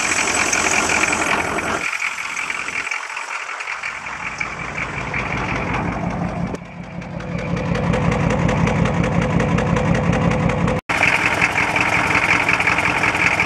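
A 1986 Chevy K20's diesel V8 idling with an even firing pulse, heard first at the engine bay and then from under the truck near the oil pan. The owner suspects a blown head gasket or a holed piston is building crankcase pressure and pushing oil out of the seals.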